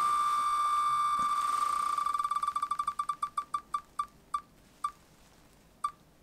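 Spinning-wheel tick sound from the wheelofnames.com name picker: clicks so fast at first that they blur into one steady beep, then separating into distinct ticks that come slower and slower as the wheel comes to rest, the last one about a second after the one before.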